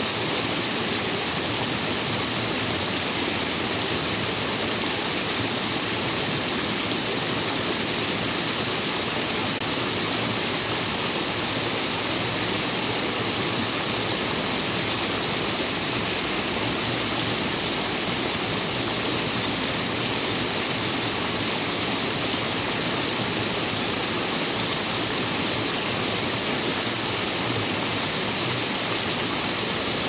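Running water: a steady, unbroken rush that never changes in level.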